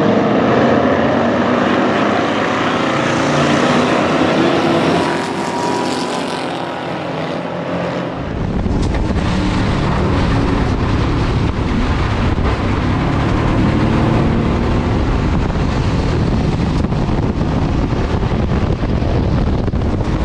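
A field of Ford Crown Victoria stock cars with V8 engines racing on a dirt track. About eight seconds in, the sound switches abruptly to a single Crown Vic's V8 heard from inside the car at racing throttle, a heavy low rumble.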